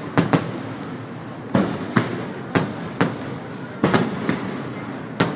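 Aerial fireworks shells bursting overhead: a string of sharp bangs at uneven spacing, about ten in five seconds, each trailing a short echo.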